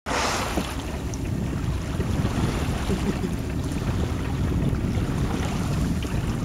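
Steady low rumble of wind and water noise on the microphone aboard a boat at sea.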